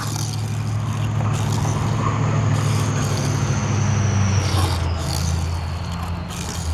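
Hot Wheels Porsche Taycan Turbo S die-cast toy car rolling across a flat board after a push, its wheels giving a steady rumble. A thin whine slowly falls in pitch as the car slows.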